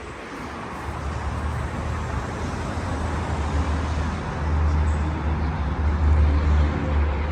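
Road traffic: a steady rush of passing cars and trucks with a deep low rumble, getting louder over the first few seconds.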